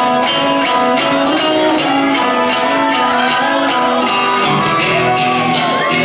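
Live rock band playing a song's instrumental intro: electric guitars over drums, with a steady cymbal beat.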